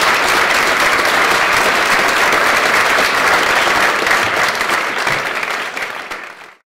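Audience applauding, a dense, steady clapping that thins a little near the end and then cuts off abruptly.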